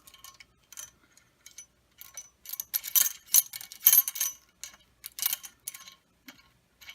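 Metal parts of a motorcycle rear stand clinking and rattling as they are handled and taken apart. A few light clicks come first, then a busy run of rattles about two seconds in that lasts a few seconds.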